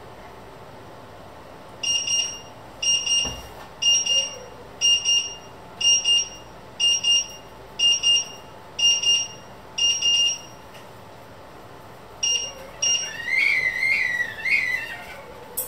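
Electronic alarm beeping, high-pitched, about once a second for roughly nine beeps, stopping, then sounding twice more before a wavering high whistling tone near the end.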